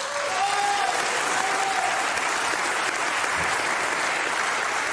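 Audience applauding steadily, with a voice faintly audible over the clapping during the first two seconds.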